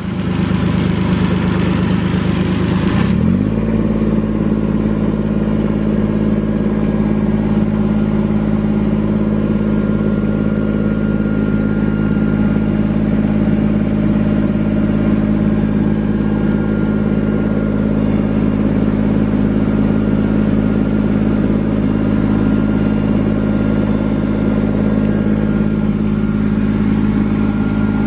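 Kubota BX25D's three-cylinder diesel engine running just after start-up. For about the first three seconds it runs with extra rough noise, then its pitch rises briefly and it settles into a steady, even run.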